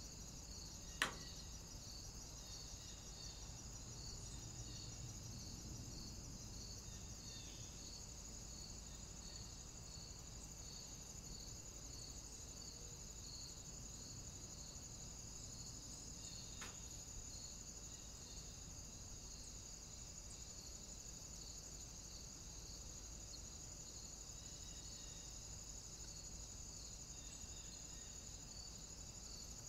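Faint, steady high chirring of insects with a regular pulse, over a low hiss. A single sharp click about a second in is the loudest sound, with a much fainter one past the middle.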